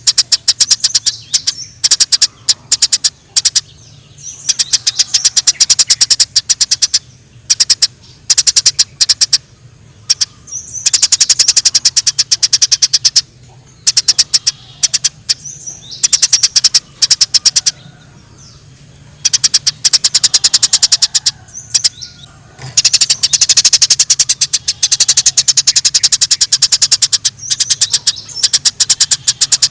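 Eurasian tree sparrows chirping very rapidly in excited bursts of a few seconds with short pauses, the agitated chatter known as fighting calls. A faint steady low hum runs underneath.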